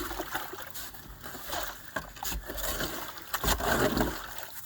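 Muddy water sloshing and splashing in a flooded dig hole, with a few short knocks and scrapes.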